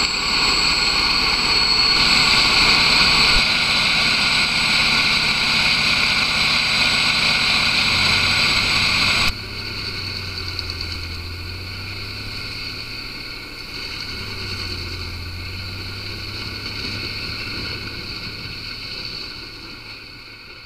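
Bandit Beast 3680 horizontal grinder running steadily while grinding firewood into chips, a loud steady drone with a steady high whine. About nine seconds in it drops suddenly to a quieter, more distant level, then fades out near the end.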